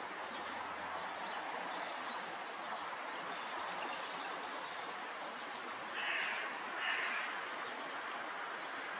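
Hooded crows cawing twice in quick succession about six seconds in, two short harsh calls, over a steady background hiss.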